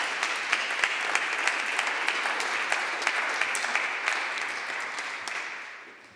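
Audience applauding at the end of a lecture, steady clapping that dies away near the end.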